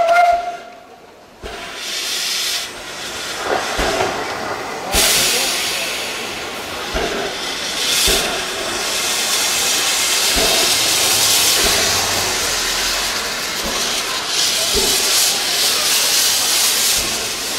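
Steam hissing from beneath an old locomotive as it creeps forward. The hiss builds and turns loud and steady about five seconds in, with a few short knocks from the running gear.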